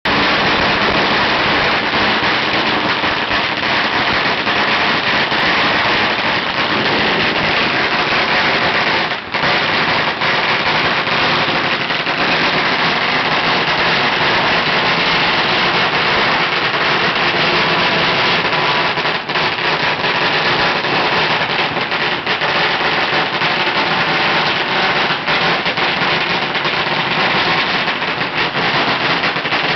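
A long string of Chinese firecrackers going off in a continuous rapid crackle of bangs, with a momentary break about nine seconds in.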